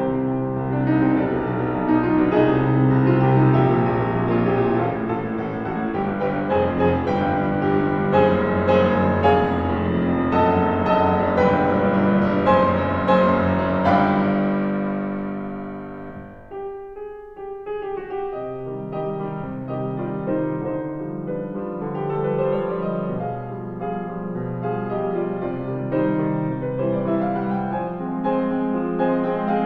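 Solo grand piano playing a classical-style sonata: a full, dense passage that dies away a little past halfway to a brief hush, then quieter playing resumes.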